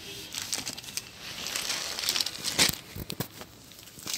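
Rustling and crinkling of an embroidered chiffon saree being unfolded and handled, with a few sharper crackles a little past the middle.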